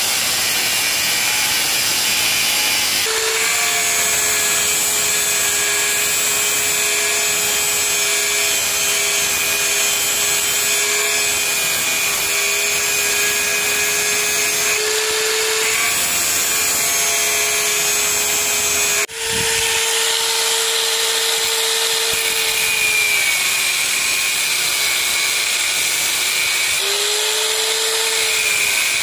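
Angle grinder with a thin cut-off disc cutting into truck leaf-spring steel: dense grinding noise over a steady motor whine that sags in pitch a few times as the disc bites. The sound cuts out for an instant about two-thirds through and resumes.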